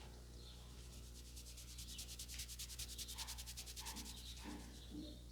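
Barber's hands rubbing fast over the customer's hair and scalp in a head massage, an even run of brisk hissy strokes, about ten a second. It starts about a second in and stops after about three seconds.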